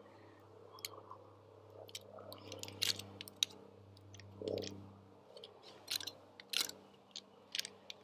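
Table knife scraping and clicking against the stiff scales of a pine cone as peanut butter is spread onto it: irregular short, crisp clicks and scrapes that come more often in the second half, over a faint low steady hum.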